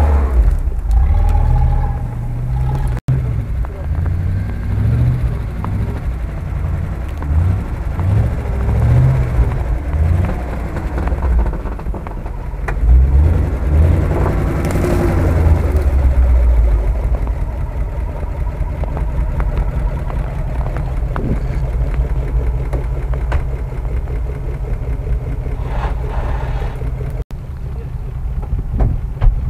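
Engines of UAZ off-road 4x4s labouring up a snowy slope, the pitch rising and falling with the throttle, loudest a little past the middle. The sound cuts off abruptly twice, about three seconds in and near the end.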